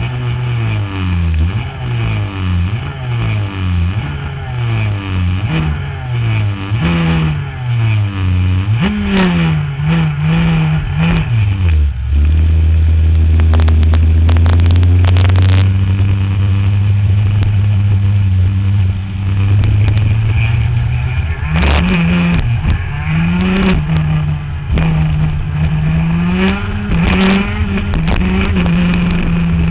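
125cc two-stroke shifter kart engine heard up close from the kart itself: revved in short repeated rises and falls, then held loud at a steady pitch for several seconds, then rising and falling again as the kart gets under way on the track.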